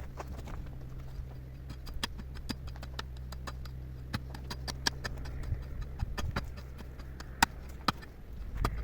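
A run of sharp, irregular clicks and knocks, a few a second, of hard objects striking each other, over a low steady hum that fades out near the end.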